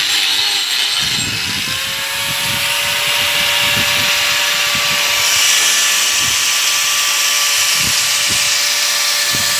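A handheld electric power tool runs continuously as it grinds into a rough wooden stump, with a steady motor whine over the grinding noise and uneven low knocks as the tool bites into the wood.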